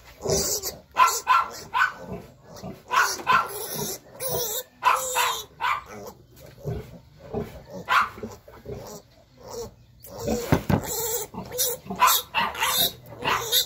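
Three-day-old piglets squealing over and over in short, loud bursts.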